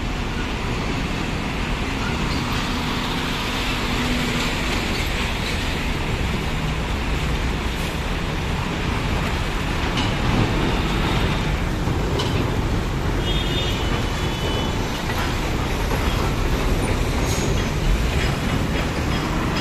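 Heavy road traffic: diesel trucks and Tata dump trucks rolling slowly past at close range on a rough road, with motorcycles going by among them. The sound is a steady, dense rumble that swells a little as the nearer vehicles pass.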